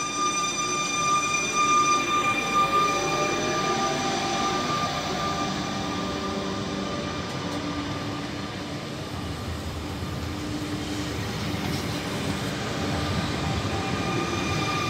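Double-deck electric regional train pulling away and accelerating past, with a steady high whine and a motor tone rising in pitch a couple of seconds in, over wheel and running noise.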